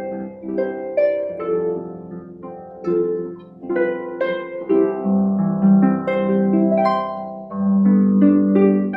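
Solo harp playing a slow melody, each plucked note ringing on over sustained low bass notes.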